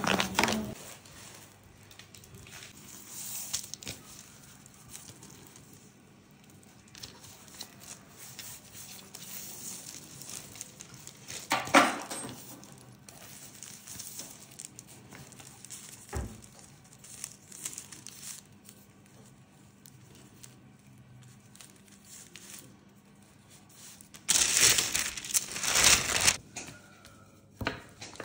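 Faint rustling of hands working a dough rope through sesame seeds and shaping it on baking paper, with a couple of sharp knocks and a louder stretch of paper crinkling and tearing a few seconds before the end.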